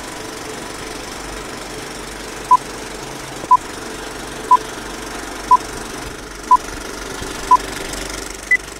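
Film-leader countdown sound effect: a steady movie-projector rattle with six short beeps one second apart, then one higher-pitched beep near the end.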